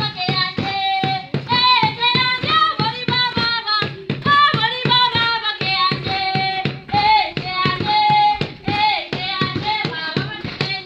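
Children singing a song together over a steady percussive beat of about three strokes a second, accompanying a group dance.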